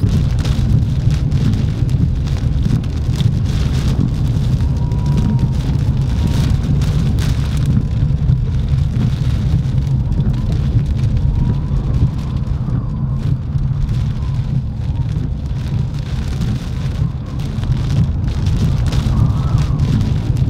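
Heavy rain pelting a moving car, heard from inside the cabin: a dense patter of drops hitting the glass and body over a steady low rumble.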